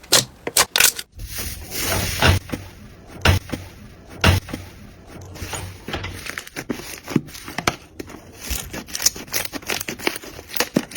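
Slime being squeezed and pressed by hand: quick sharp clicks and pops, changing about a second in to a fuller, squishier sound with a louder pop about once a second, then faster clicking again near the end.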